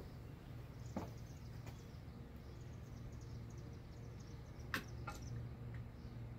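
Sharp metallic clicks from metal engine parts being handled, once about a second in and twice near the five-second mark, over a low steady hum and faint high chirping.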